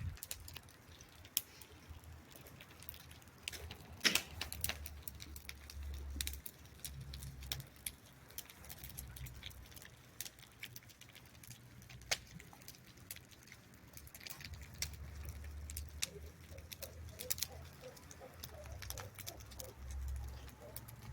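Bonfire of burning rubbish crackling faintly, with scattered irregular pops and snaps, over a low uneven rumble.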